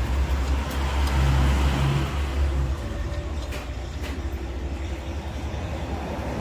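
A steady low rumble, with a couple of faint clicks about three and a half and four seconds in as the metal wheel spacer and its lug nuts are handled.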